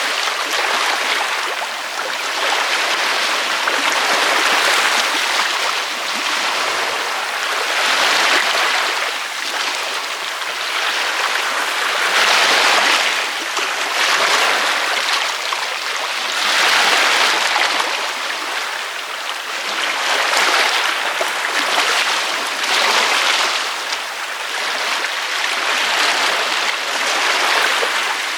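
Ocean waves breaking on a beach, a steady hiss of surf that swells and fades every two to three seconds as each wave comes in.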